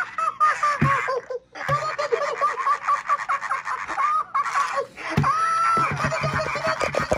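2006 T.M.X. Tickle Me Elmo toy laughing on and off in a high-pitched recorded voice as its tickle routine makes it topple over, with a thump about a second in and another about five seconds in.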